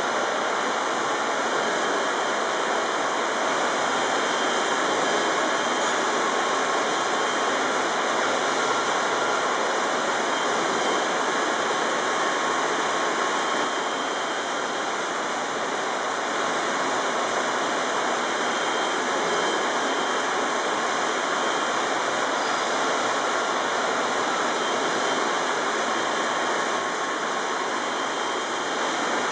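Steady rushing hiss of machinery as an 1878 Godard & Massey compound rotative beam engine turns over without steam, with no distinct beat or knocks.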